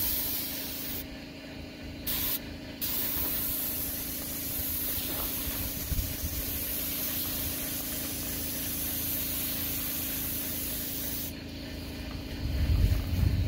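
Paint spray gun on an air hose hissing as it sprays paint: it runs for about a second, stops, gives one quick short burst, then sprays continuously for about eight seconds and cuts off about eleven seconds in. A steady low hum runs underneath.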